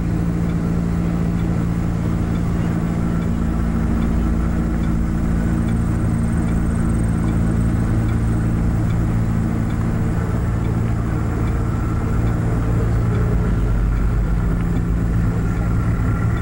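A moving car's engine and road noise: a steady low hum with an even rush over it, unchanging throughout.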